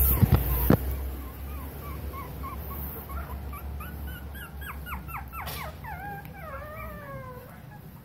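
Young puppy whimpering: a string of short, high squeaks, then several quick yelps falling steeply in pitch about five seconds in, ending in a longer whine that wavers and drops in pitch. A few sharp knocks sound in the first second.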